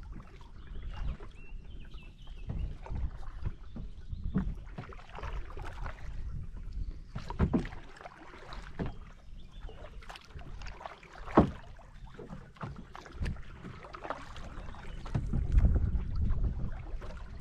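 Kayak paddle strokes dipping and splashing in calm river water over a low rumble that grows heavier near the end, with one sharp knock about eleven seconds in.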